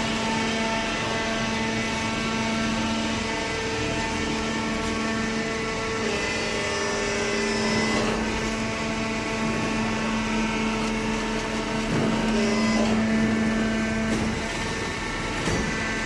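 Hydraulic carton baler's motor and pump running with a steady humming whine whose pitch shifts a few times, with a few faint knocks.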